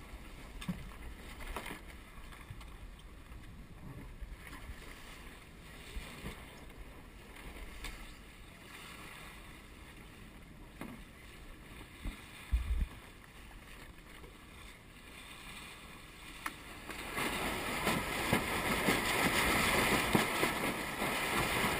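Wind and water rushing past a Star-class keelboat under sail, steady at first and growing clearly louder about three-quarters of the way through, with a single low knock about halfway.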